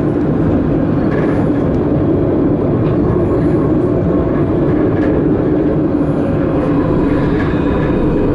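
Tram running on its rails, heard from inside the driver's cab: a steady rumble with a constant hum.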